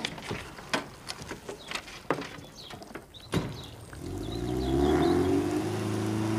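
Car door clicks and knocks as a door is opened and shut. About four seconds in, a small hatchback's engine is heard running steadily as the car pulls away.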